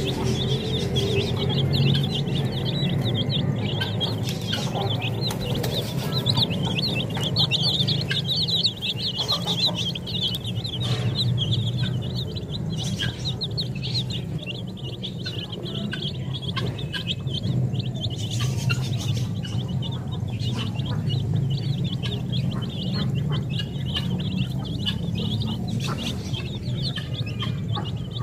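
A flock of chicks peeping: many short, high cheeps overlapping in a constant chatter, densest in the first several seconds and thinning out later, over a steady low hum.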